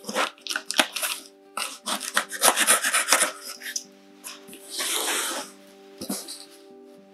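Cardboard packaging being opened and handled by hand: irregular scraping, rubbing and crinkling, with a longer rustle about five seconds in. Background music plays underneath.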